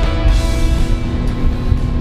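Background music fading out in the first second or so, giving way to the steady drone of the RIB's outboard motor running at speed, over a low rush of wind and water.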